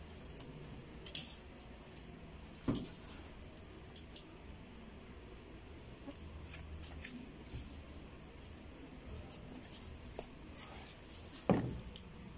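Scattered small clicks and taps from objects being handled, with two louder knocks, one about three seconds in and one near the end.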